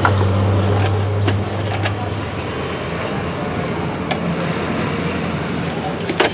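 Light clicks and taps of hand tools against an amplifier's metal chassis, over a steady background noise and a low hum that fades out about two seconds in.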